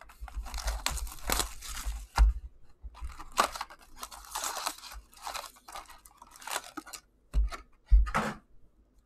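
A cardboard hobby box of SP Authentic hockey cards being torn open, its lid flipped back and its foil-wrapped packs crinkling and rustling as they are pulled out by hand. Near the end come two short knocks as the packs are set down on the table.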